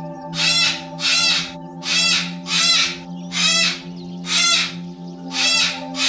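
Pink cockatoo (Major Mitchell's cockatoo) giving a run of about seven loud, harsh screeching calls, each about a third of a second long, spaced unevenly and partly in pairs.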